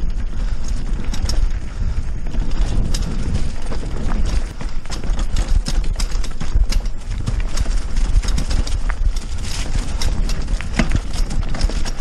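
Fat-tired bike rolling over a bumpy unpaved dirt trail: frequent irregular rattles and knocks from the bike over bumps, over a constant low rumble of tyre and wind noise.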